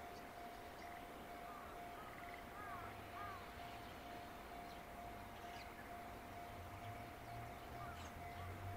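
Faint outdoor ambience with birds calling a few times. A low hum builds toward the end as a distant electric freight train approaches, and a thin steady high tone runs underneath.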